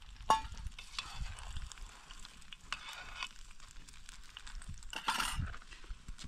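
Beaten eggs sizzling in a metal pan over a wood fire while a metal spoon stirs them, clinking and scraping against the pan, with one ringing clink about a third of a second in. The hiss swells briefly about five seconds in.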